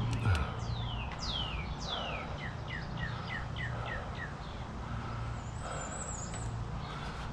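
A songbird singing a series of falling whistled notes: a few long downward slides, then about eight short quick falling notes, with a faint high trill a few seconds later. A steady low hum runs underneath.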